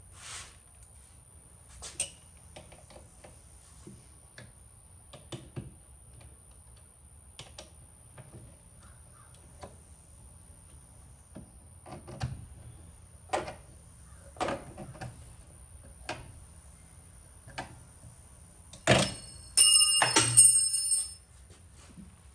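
Scattered clicks and knocks of hand tools and metal parts being handled while a mirror is fitted, ending with a loud jingling metal clatter with a ringing tone that lasts about two seconds.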